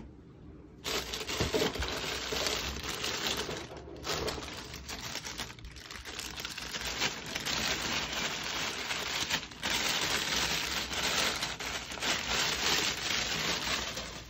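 Clear plastic packaging bag crinkling and rustling as it is pulled off by hand, starting about a second in, with a few short pauses.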